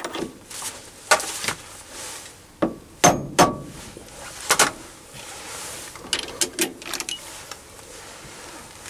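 A string of sharp metallic clicks and knocks as lathe tooling is handled and the brass pipe is taken out of the three-jaw chuck.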